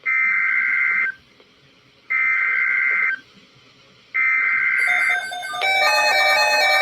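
Emergency Alert System SAME header on NOAA Weather Radio: three identical one-second bursts of warbling data tones, about a second apart, encoding the alert before the voice message. About five and a half seconds in, music starts.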